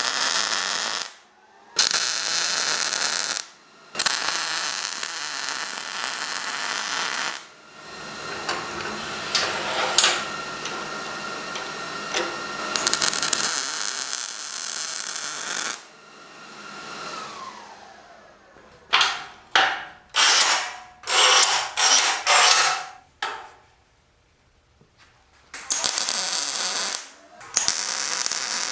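Metalworking shop tool noise in separate abruptly cut stretches. Around the middle, a motor-driven tool runs with a steady whine and then spins down. This is followed by a quick series of short loud bursts.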